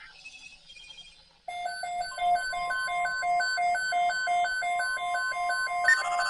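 Weather radio alert tones: about a second and a half in, a rapid electronic beeping starts at about three beeps a second, and a steady alarm tone joins under it soon after.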